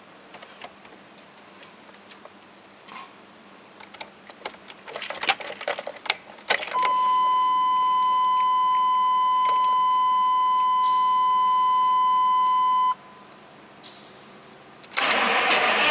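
Keys rattling and clicking at the ignition of a Chevy Suburban with a 6.5 L turbo-diesel, then a steady warning tone for about six seconds that cuts off. Near the end the starter begins cranking the engine, which won't start: fuel reaches the injection pump but none comes out of the injection lines.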